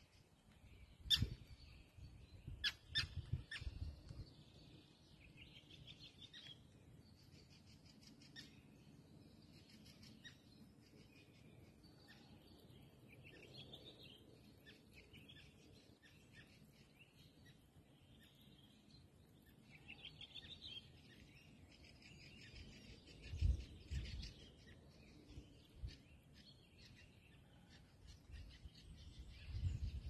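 Wild songbirds chirping and calling faintly, with short scattered calls all through. A few sharp clicks come in the first few seconds, and low thuds about two-thirds of the way through.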